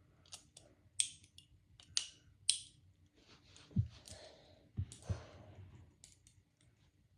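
Metal handcuffs clicking and rattling as they are handled: several sharp clicks over the first few seconds, then rustling and a few dull knocks.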